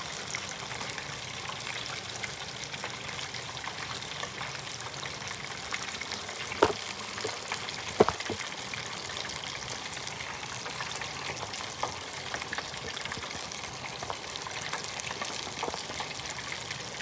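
Beer-battered shrimp deep-frying in hot oil, a steady sizzling hiss with fine crackles. Two sharp knocks stand out, about six and a half and eight seconds in.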